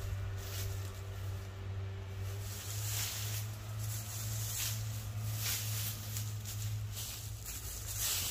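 Hands brushing and scraping dry leaf litter and twigs off a woodland floor, rustling in repeated strokes. Under it runs the steady low drone of a farm tractor working a nearby field.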